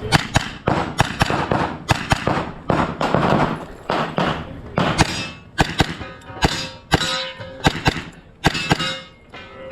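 Gunshots fired in quick succession, about two a second, with steel targets ringing after several of the hits.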